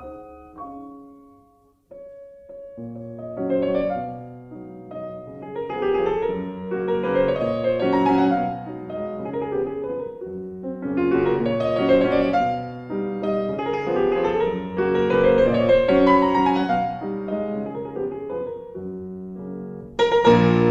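Background piano music: a melody in repeating phrases that fades out briefly about two seconds in, then builds again, with a fresh louder phrase starting near the end.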